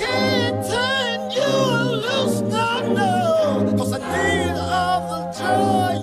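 Background music: a melodic, layered vocal line over sustained chords.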